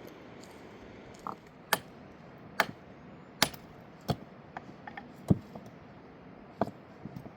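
A series of about a dozen sharp knocks and clicks of hard objects striking each other, irregular and roughly one every half second to a second, over a steady background hiss.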